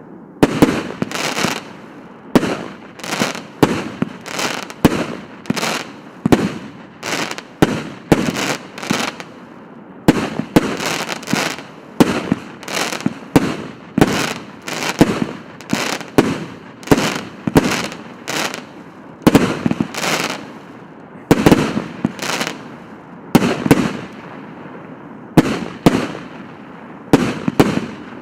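150-shot firework cake battery firing: a steady run of sharp shots, one or two a second, each with a short fading tail.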